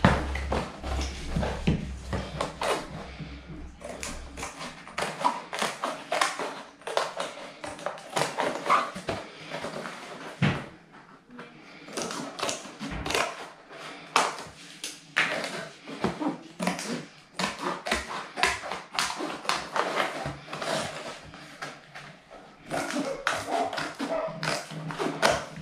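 Scissors cutting through corrugated plastic (Correx) board, a long run of short, crisp snips and crunches as the board's edges are trimmed.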